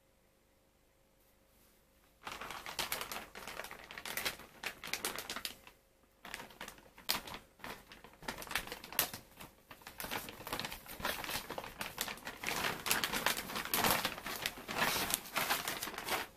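Clear plastic packaging bag crinkling and rustling as it is handled and a bicycle handlebar is pulled out of it. The crackling starts about two seconds in, breaks off briefly near the middle, and stops suddenly at the end.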